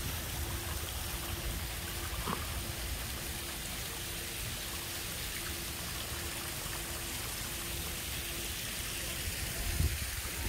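Steady wash of running water, with wind rumbling on the microphone and a faint, intermittent steady hum.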